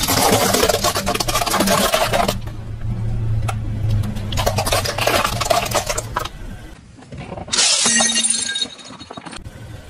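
A car tyre rolls over a pile of clam shells and crushes them in two bouts of dense cracking and crunching, over the car's low engine hum. Near the end a tyre crushes M&M candies and plastic, a short burst of crunching.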